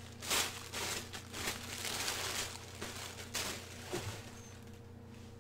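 Crepe paper rustling and crinkling as a T-shirt is unwrapped from it, in a few separate rustles over the first three and a half seconds.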